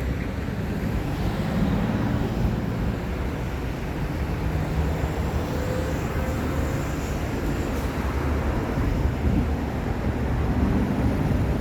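Steady freeway traffic: vehicles passing on the road and off-ramp, a continuous low rumble of engines and tyres with engine hum rising and fading as cars go by.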